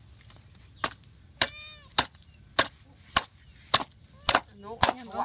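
A knife chopping steadily on a cutting board: eight sharp strokes, about one every 0.6 seconds, with a few brief pitched calls between them.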